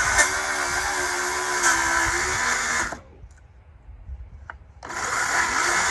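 A handheld power tool runs in two bursts of about three seconds each, with a pause of about two seconds between them, as it cuts into pallet wood.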